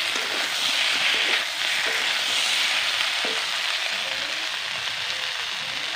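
Young jackfruit curry sizzling steadily in an iron kadai. A metal spatula stirs it, scraping against the pan a few times in the first half.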